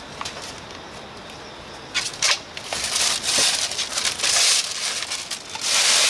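Crinkling and rustling with sharp irregular clicks, much louder from about two seconds in, as an order of sundae is handled and packed at the stall.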